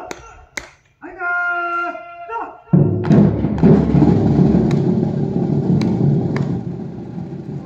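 A long, drawn-out drill command is shouted. About three seconds in, the military band's drums break in with a loud roll that slowly fades, with a few sharp taps over it.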